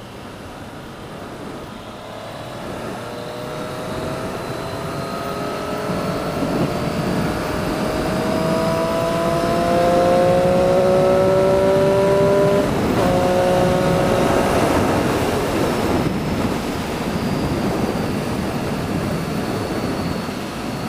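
Motorcycle engine accelerating under way, its pitch climbing slowly for about ten seconds, then dropping at a gear change about two-thirds of the way through. A rush of air noise builds as speed rises.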